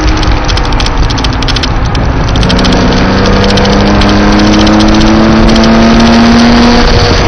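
Porsche engine pulling hard under acceleration on track, heard from inside the car over loud rushing noise. Its note climbs steadily from about two seconds in, then breaks off near the end at an upshift.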